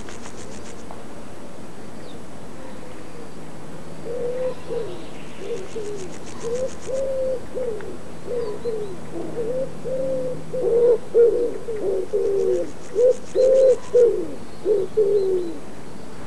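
A dove cooing: a long run of short, arching low coos that starts about four seconds in and grows louder in the second half. Faint, high, rhythmic buzzing comes and goes in three short spells.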